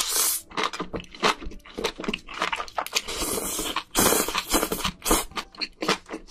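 Close-miked eating: irregular crunching, biting and chewing of food, many short crackly strokes in quick succession.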